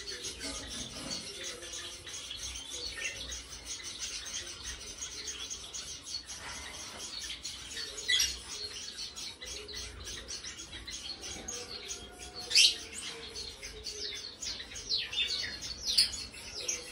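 Many small cage birds chirping and tweeting, with quick high calls overlapping throughout. A few louder, sharper chirps stand out about halfway through, again around three quarters of the way, and near the end.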